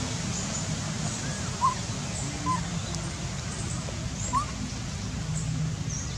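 A few short, squeaky animal calls, three of them louder, spaced about a second apart, with fainter high chirps over a steady low outdoor hum.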